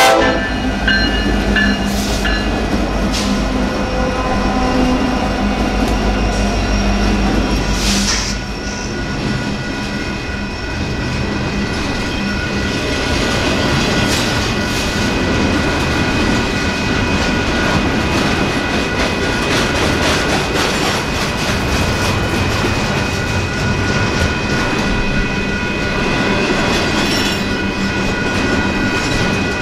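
A Union Pacific diesel freight locomotive rumbles past for the first eight seconds or so. A double-stack intermodal container train follows, its wheels clattering steadily over the rails with a faint steady wheel squeal.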